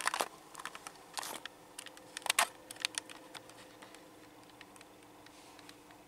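Handling noise of a handheld camera being moved: scattered small clicks and knocks, most of them in the first half, over a steady faint hum.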